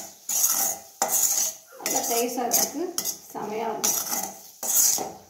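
Metal spoon scraping and stirring diced fried potatoes around a stainless steel kadai, about six strokes at roughly one a second.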